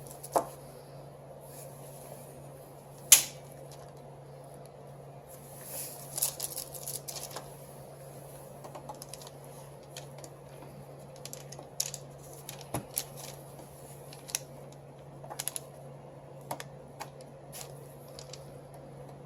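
Irregular clicks, taps and short clatters of hard plastic and metal parts being handled during repair work on a copier fuser unit, with one sharp click about three seconds in, over a steady low hum.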